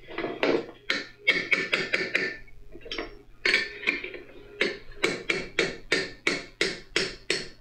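Repeated hand-hammer strikes on a punch, metal on metal, working a stubborn part out of a Kubota B3030 front-axle gear housing. The blows are uneven at first, then settle into a steady run of about three a second.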